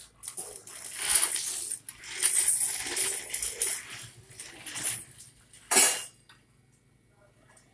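Plastic wheels of a baby walker rolling and rattling over a hard stone floor, ending with a louder clatter about six seconds in.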